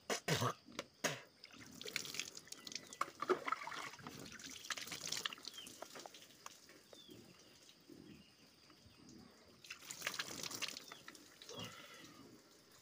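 Water splashing and dripping as a man spits out mouth-rinse water and splashes handfuls of water over his face and hair. There are a few sharp splats in the first second.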